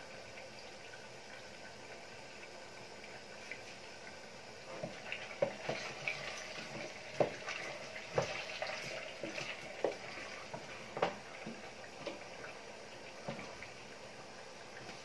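Covered pan of pork adobo simmering with a steady low bubbling. From about five seconds in, a metal spoon clinks and scrapes repeatedly against a stainless saucepan as its contents are stirred and scooped.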